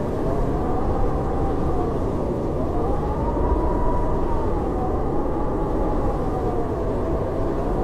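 Howling blizzard wind: a deep, steady rush with a thin whistling howl that slowly rises and falls in pitch.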